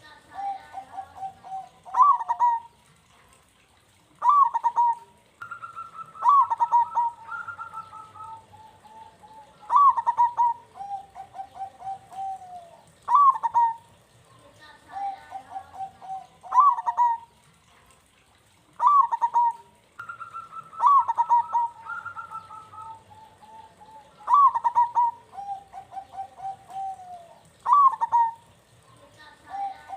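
Zebra dove (perkutut) singing its cooing song. Each phrase is a sharp high note followed by a rolling, burbling trill that slides down, and the phrase repeats every three to four seconds.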